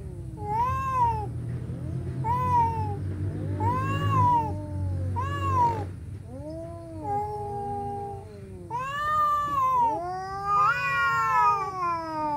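Two domestic cats yowling back and forth in a standoff, a typical territorial threat display. The calls come as a string of drawn-out, rising-and-falling yowls, about one every second and a half, with the last ones longer.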